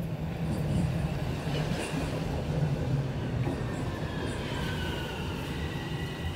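Bombardier Toronto Rocket subway train pulling into the station: a low rumble of the approaching train, then from about four seconds in a high whine, one tone falling in pitch and others held steady, as the cars pass and slow.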